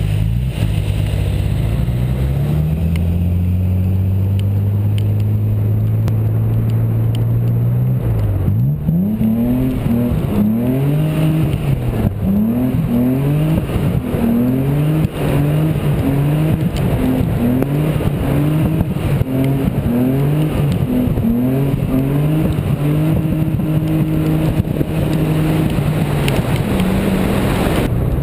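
BMW E28 528's straight-six engine pulling up steadily for about eight seconds. It then revs up and down repeatedly, roughly once a second, as the car is pushed around a wet roundabout with the rear wheels spinning. The owner puts the failed slides down to a poorly working differential.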